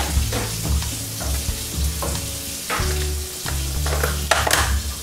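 Wooden spoon stirring and breaking up thick corn casserole in a stainless steel pot of broth: wet squelching with a few sharp knocks and scrapes against the pot, the strongest near the end.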